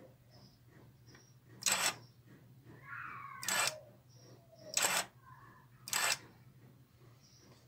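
Small gear motor of a door-access lever mechanism whirring in four short bursts, each about a quarter second long. Each burst comes as the relay board's push button is pressed to test it, swinging the lever arm.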